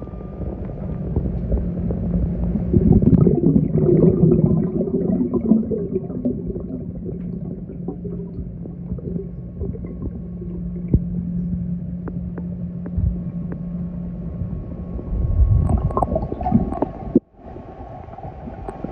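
Robotic pool cleaner's motor humming steadily, heard underwater, over gurgling, rumbling water noise. The hum stops about fifteen seconds in, and the sound drops out abruptly for a moment near the end.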